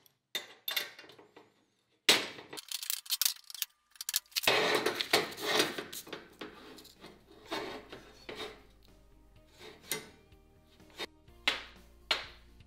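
Steel tongs clinking and clanking against the steel welding table and tools as they are handled, in a series of sharp knocks, busiest in the first half. Background music plays underneath from about the middle on.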